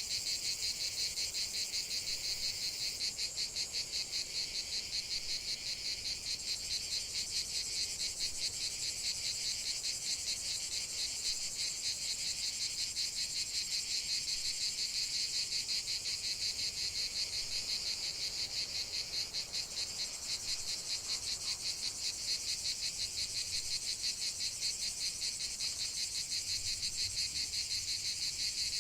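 Dense chorus of crickets trilling in fast, even pulses, strongest in a high band and steady throughout.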